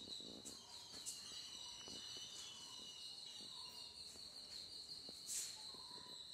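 Faint, steady, high-pitched insect drone, with a few light clicks and a short hiss about five seconds in.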